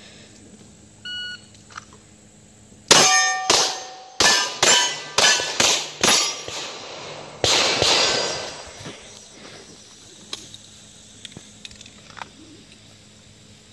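An electronic shot-timer beep about a second in, then a string of about eight pistol shots over some four and a half seconds, steel target plates ringing with the hits. The last shot comes after a longer pause, followed by a longer ring.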